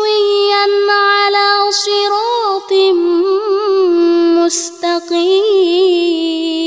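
A female reciter chanting the Quran in melodic tartil style. She holds long, ornamented notes with a wavering pitch, with short breaks about two and a half and five seconds in.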